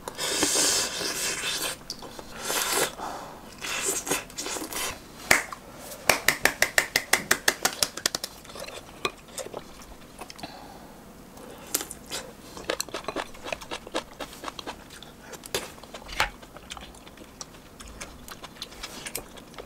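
Metal spoon and chopsticks clinking and scraping against a ceramic soup bowl and side dish during a meal, with a breathy blowing on hot food in the first two seconds. A quick run of small clicks comes about six seconds in.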